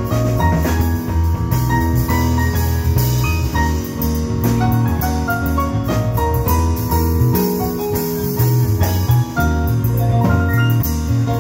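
Live jazz quartet playing: a keyboard carries quick runs of short notes over bass and drums with cymbals.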